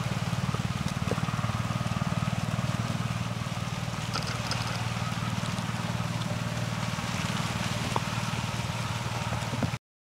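Low, steady, rapid thrumming of a running engine, cutting off suddenly near the end.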